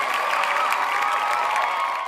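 Crowd applauding and cheering: dense, steady clapping that starts to fade out near the end.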